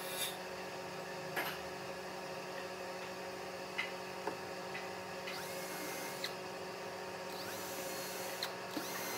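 Cordless drill run in three short bursts of about a second each, spinning up with a rising whine as it drills into a pine board. A few light knocks of wood being handled come earlier, over a steady low hum.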